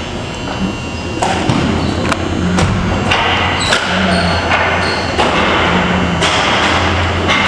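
Floor hockey play in an echoing arena: sticks and ball knock and thud on the floor and boards again and again, over a steady low hum.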